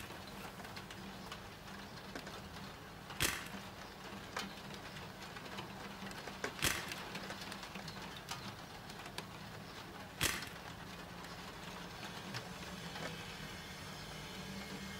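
Four sharp clicks about three and a half seconds apart, like a 35mm film camera's shutter firing, over a steady soft hiss of rain.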